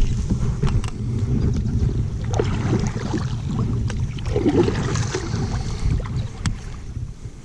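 Wind buffeting the microphone with a steady low rumble, with water around a kayak and scattered small clicks and knocks.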